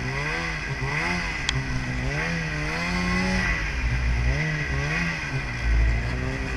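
Snowmobile engine running under a rider's throttle, its pitch rising and falling again and again, over a steady low rumble. A short click about a second and a half in, and a brief low surge near the end.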